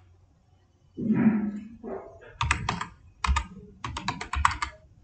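Typing on a computer keyboard: a quick run of key presses from about two and a half seconds in until near the end. It is preceded by a short low sound about a second in.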